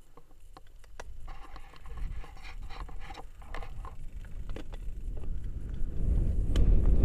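Mountain bike rolling downhill over grass and loose stones: scattered clicks and rattles from the bike and tyres, under a low wind rumble on the microphone that grows steadily as the bike picks up speed and is loudest near the end.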